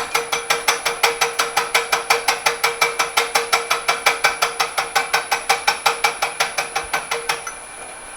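Homemade single-point fly cutter making an interrupted cut in metal, the cutter striking the workpiece once per spindle turn in a fast, even ticking of about six or seven strikes a second. The cut stops about seven and a half seconds in, leaving the machine spindle running.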